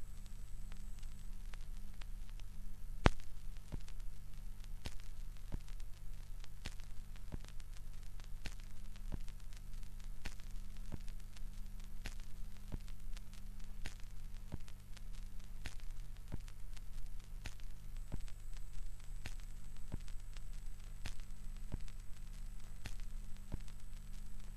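Stylus riding the run-out groove of a vinyl LP spinning at 33⅓ rpm: a click about every two seconds, once per turn of the record, over faint surface crackle and a steady low hum from the playback chain.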